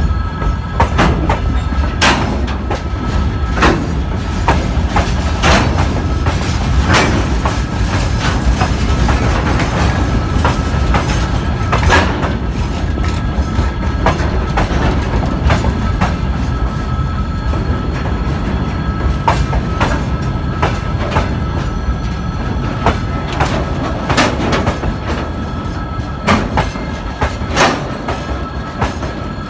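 Freight wagons (gondolas, covered wagons and tank cars) rolling past: a steady low rumble with the wheels clacking over rail joints every second or two, and a faint steady whine.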